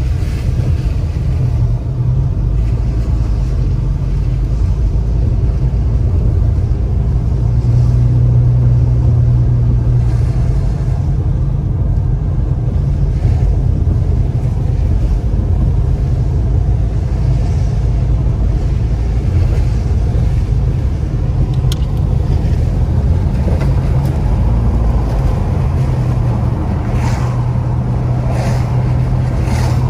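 Steady low rumble of a car driving on a wet road, heard from inside the cabin: engine hum and tyre noise on wet pavement. A few brief hissing swishes come near the end.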